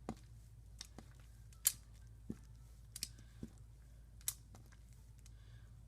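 Wet, goopy homemade slime being squished and stretched by hand, giving a scattering of short sharp pops and clicks, the loudest about a second and a half in, over a low steady hum.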